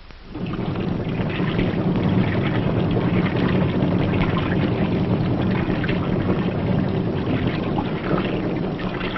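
River patrol boat (PBR) diesel engines running steadily, coming in about half a second in as a low, even drone under a hiss.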